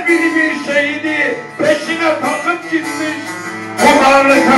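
Turkish folk music: a bağlama (long-necked saz) plays a plucked melody.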